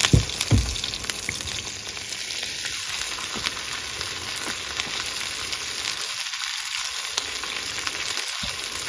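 Salmon fillets sizzling in a pan that is too hot, searing and burning their undersides. There are two low knocks right at the start, then an even, steady sizzle.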